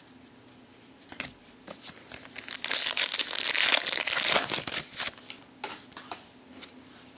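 Plastic wrapper of a trading-card pack crinkling as it is torn open and crumpled, loudest in the middle for about three seconds, with a few small clicks of cards being handled before and after.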